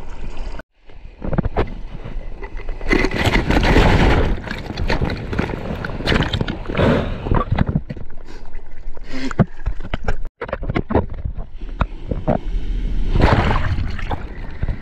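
Seawater sloshing and splashing around a bodyboarder's action camera held at the waterline as he paddles through the swell, in uneven surges. The sound drops out abruptly twice, once about a second in and again about two-thirds of the way through.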